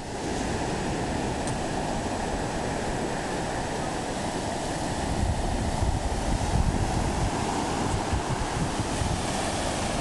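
Ocean surf breaking and washing up a sandy beach, a steady wash of noise, with wind buffeting the microphone in gusts that grow stronger about halfway through.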